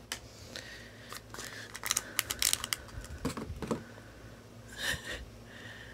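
Faint, scattered small clicks and taps, with a quick cluster of them about two seconds in, over a low steady hum.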